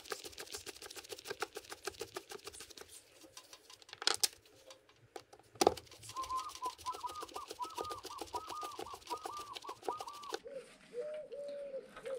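A screwdriver ratcheting rapidly and evenly as the airbox lid screws are turned, then two sharp knocks. In the second half a bird calls over and over in short rising-and-falling notes, which drop lower near the end.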